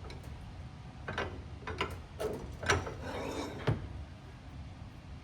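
Polyurethane strip being worked by hand into the slot of a trap machine's throwing arm: a series of sharp clicks and knocks, with a brief rubbing stretch about three seconds in, as the strip pops into its seat.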